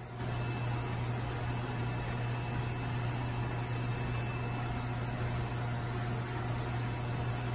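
Steady low hum and even hiss of aquarium pumps and sump plumbing running.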